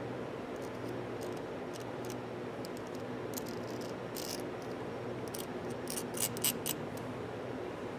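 Scattered light metallic clicks and ticks from the small parts of a ratchet being handled, a few louder ones about six seconds in, over a steady low background hum.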